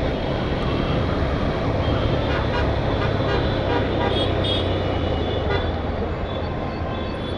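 Honda CB Hornet 160R's single-cylinder engine running steadily at cruising speed, under steady wind and road noise. A few faint horn toots from surrounding traffic come about halfway through.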